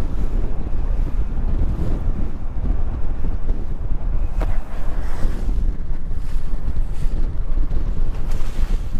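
Strong wind buffeting the microphone in a steady low rumble over choppy water on a bass boat, with a brief sharp crack about halfway through.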